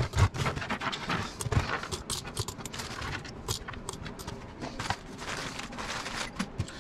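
Small parts and plastic bags being picked up and moved on a cluttered workbench: irregular clicks, knocks and rustling, with a louder knock right at the start.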